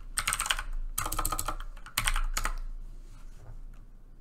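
Typing on a computer keyboard: three quick bursts of key clicks about a second apart, entering a name into a text field.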